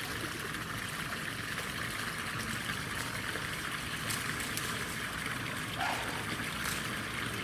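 Running water trickling steadily.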